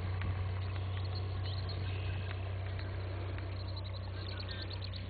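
Cessna 172's engine and propeller giving a steady low drone at takeoff power, slowly fading.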